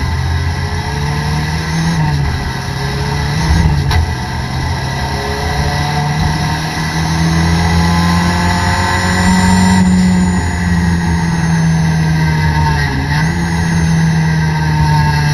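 Toyota Corolla race car's engine heard from inside the cabin, running at a fairly steady pace, with a few brief dips and recoveries in the engine note.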